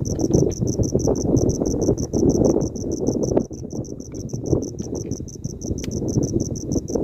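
Strong wind gusting and buffeting, heard as a loud low rumble, under an insect chirping steadily at about five pulses a second.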